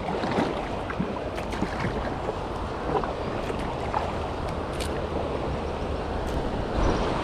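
Kayak gliding on fast-flowing river water: a steady rush of water with scattered paddle splashes and small knocks.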